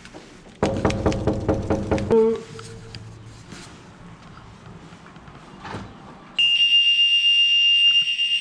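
A smoke alarm being tested sounds a shrill, steady high tone that starts about six seconds in. Earlier, a loud rapid buzz lasts about a second and a half.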